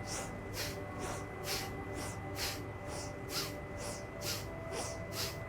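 Bhastrika pranayama (breath of fire): rapid, forceful breaths through the nose, inhale and exhale both heard as sharp rushes of air, about two a second in an even rhythm.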